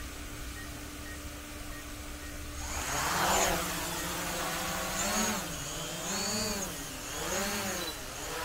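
Small folding camera quadcopter drone spinning up its motors about three seconds in and lifting off, then a propeller whine that rises and falls in pitch several times as it climbs and steadies in the air.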